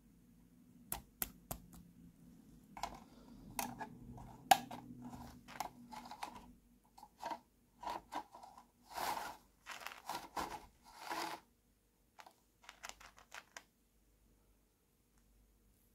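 Small plastic toy-house parts clicking, snapping and scraping as they are fitted together by hand: scattered sharp clicks, a run of longer scraping rustles in the middle, then a few more light clicks.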